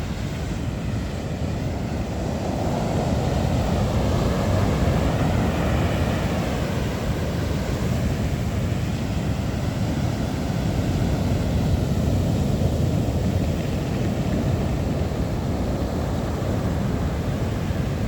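Storm wind over a rough sea, gusting across the microphone as a loud, steady low rumble that swells a few seconds in and again around the middle.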